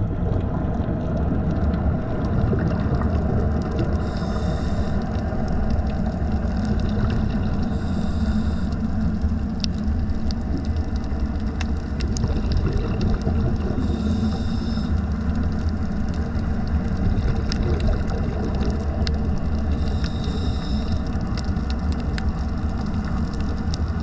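Underwater reef sound heard through a camera's waterproof housing: a steady low rumble with scattered sharp clicks. A scuba diver's regulator hisses with each breath, four times, each hiss lasting about a second.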